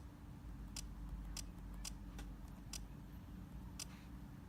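Buttons on a home alarm control panel being pressed: about six short, sharp clicks at irregular intervals, over a faint steady low hum.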